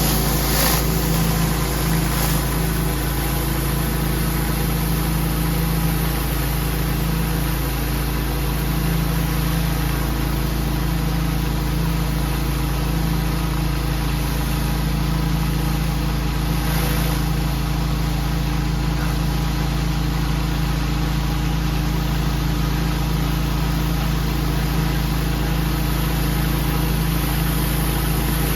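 Pressure washer's engine running steadily at a constant speed, with a steady hiss of spray over it.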